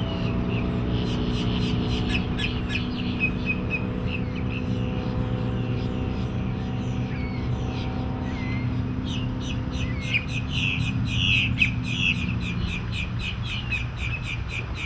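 Volvo Penta 5.0 GI V8 inboard engine running steadily with a low hum, while birds chirp over it in quick short calls that are thickest a little past the middle.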